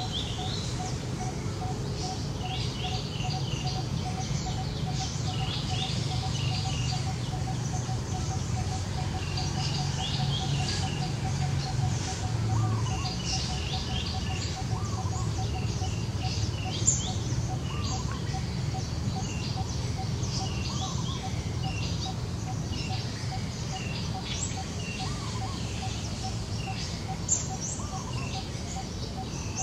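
Birds chirping and twittering on and on, over a fast, even run of low pips and a low background hum. Two sharp clicks stand out, about ten seconds apart.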